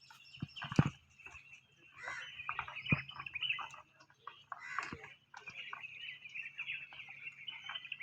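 Birds chirping, with a few sharp clicks about one, three and five seconds in.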